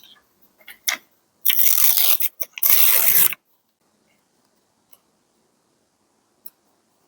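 Two loud rips, each just under a second long, of paper craft material being torn while a journal page is decorated. A few light taps of paper handling come before and after them.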